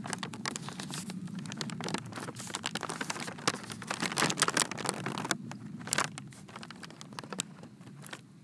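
Brown paper bag crinkling and crackling as its top is folded and rolled closed by hand. The crackling is dense for about five seconds, then grows sparser and quieter.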